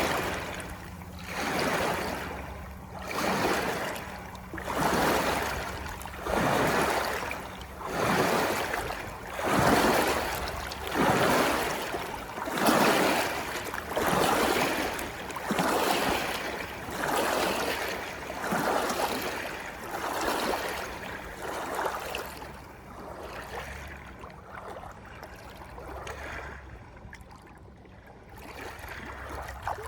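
Water sloshing in regular surges, one about every second and a half, each a brief rush of noise. The surges grow weaker and less regular in the last third.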